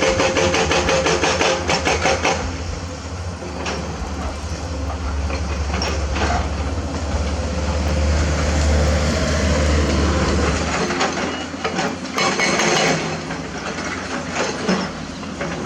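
Hydraulic excavator at work: its diesel engine runs with a steady deep rumble, under metallic clanking and rattling. There is rapid clatter for the first couple of seconds, then a few separate knocks, and the deep rumble drops away about two-thirds of the way in.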